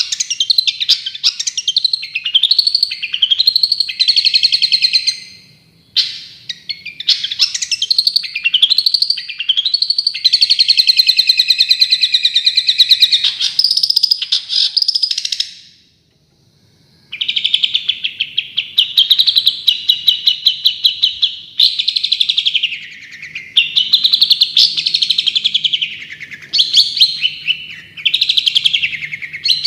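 Songbird singing loud, rapid-fire 'tembakan' phrases: fast runs of repeated chirping notes and trills. The song stops dead for about a second midway, then starts again.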